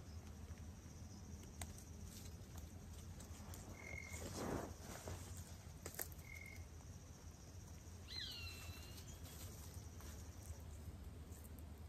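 Faint outdoor ambience: a steady high insect drone that stops about ten seconds in, two short high notes around four and six seconds, a brief rustle, and about eight seconds in one falling, whistled animal call.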